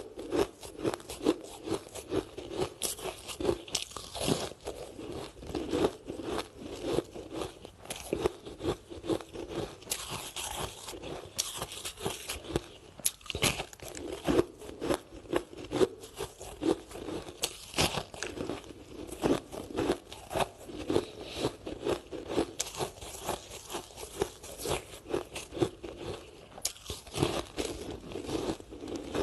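Ice sticks being bitten and chewed close to the microphone: a continuous run of sharp, crackling crunches, several a second.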